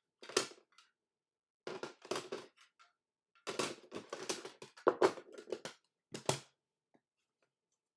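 Hard plastic graded-card slabs being handled and shuffled: irregular clusters of short clacks and scrapes as the cases knock and slide against each other.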